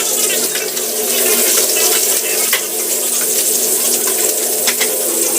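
Water running steadily, as from a kitchen tap, with a few sharp clinks.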